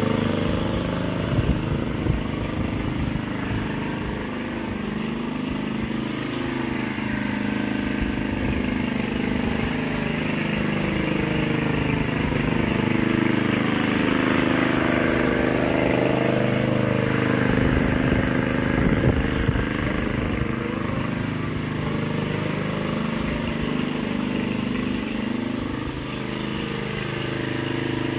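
Petrol walk-behind rotary lawn mower running steadily as it is pushed across the grass cutting, its engine note wavering slightly up and down.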